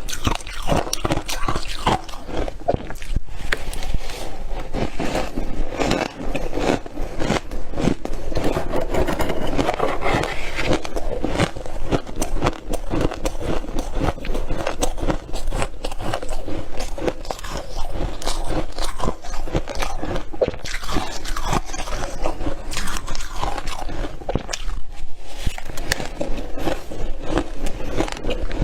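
Close-up biting and chewing of squeaky freezer frost: dense, continuous crunching.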